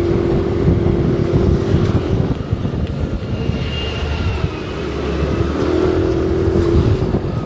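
Car driving on a road: a steady engine and road rumble with a constant low hum, and a faint high tone about four seconds in.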